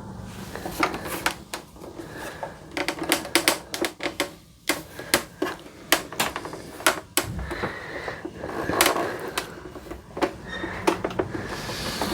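Irregular clicks, taps and knocks of a plastic replica prop chainsaw being handled and turned over, with a faint steady low hum underneath.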